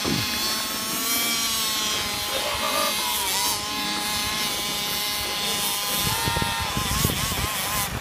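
Small engine running steadily with a high buzzing whine, its pitch wavering slightly a few times. Low thumps come in over it near the end.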